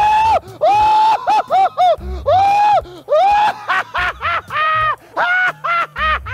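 A man laughing hysterically in loud, high-pitched, drawn-out shrieks, one after another.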